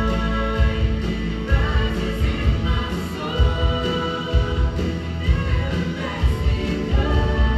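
Live band and singers performing a song, with sung notes held over a steady drum beat.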